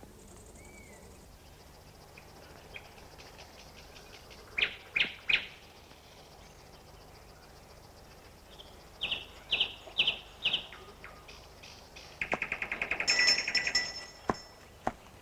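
Small bird chirping: three short calls about five seconds in, four more around ten seconds, then a fast trill near the end, over a faint high hiss.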